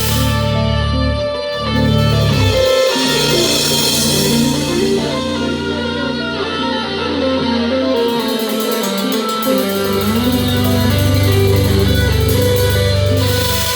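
Live instrumental progressive rock played on Chapman Stick and touch guitar: sustained low bass notes under layered plucked and held melodic notes. The bass drops out briefly twice, near three seconds in and again around the middle.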